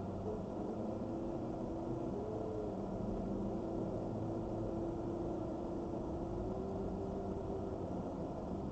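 Vehicle engine and road noise from driving, a steady low rumble with a faint tone that drifts slowly in pitch.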